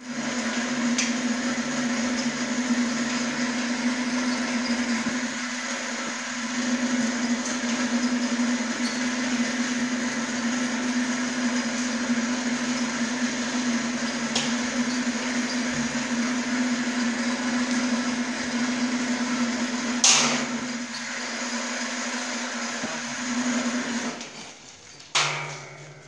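Electric chain hoist motor running with a steady hum as it lifts a carbonization furnace's inner section, then stopping near the end. There is a sharp clank about 20 s in, and another knock just after the motor stops.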